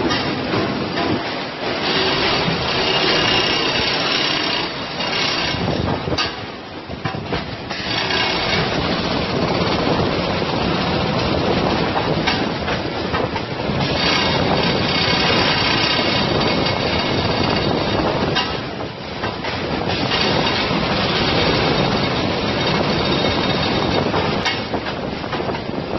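Packaging machinery running: a vertical form-fill-seal packing machine and the factory machines around it make a steady, dense mechanical noise with faint high tones. The noise dips briefly twice.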